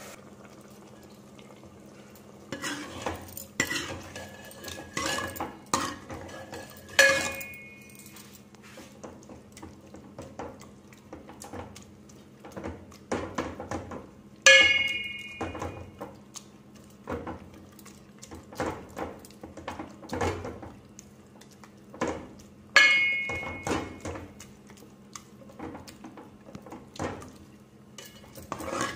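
Metal ladle stirring thick chickpea curry in a metal pot: wet scraping and knocks against the pot. Three louder ringing clanks, about 7, 14 and 23 seconds in, are the ladle striking the pot's side or rim.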